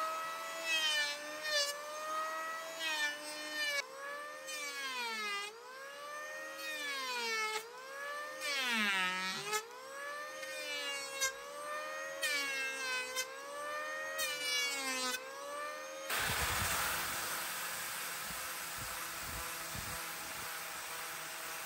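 Electric hand planer running on the end grain of a wood slice, its whine dropping in pitch each time the cutter head takes load and rising again between passes. About sixteen seconds in this gives way to the steady hiss of a power sander on the wood.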